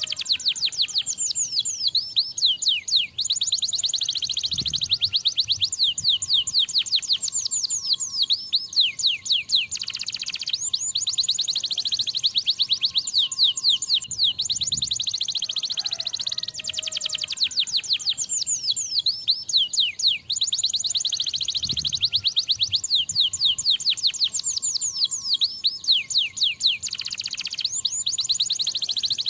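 Domestic canary singing nonstop: long, fast trills of rapid, sweeping high notes, broken only by brief pauses every few seconds.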